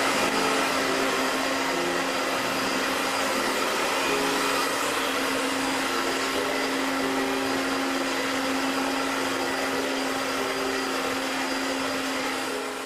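Handheld hair dryer running steadily, blowing hot air with a constant rushing sound over a steady motor hum; it fades out near the end.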